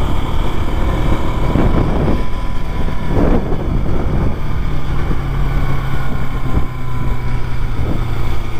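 KTM RC 200's single-cylinder engine running on the move, with wind buffeting the microphone; a steady low engine note comes up about halfway through.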